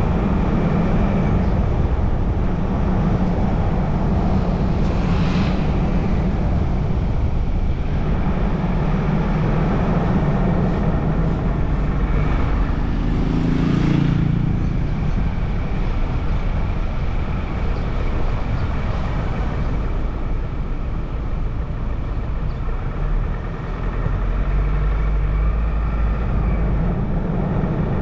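Steady road and traffic noise from a car driving through town, a low continuous rumble. Another vehicle swells past briefly about five seconds in and again louder about thirteen to fourteen seconds in.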